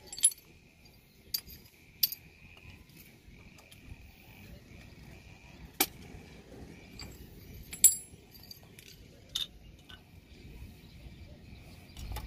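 Scattered metallic clicks and clinks of removed brake lining pieces, rivets and a screwdriver being handled and set down on the concrete, about a dozen separate taps with the sharpest about eight seconds in.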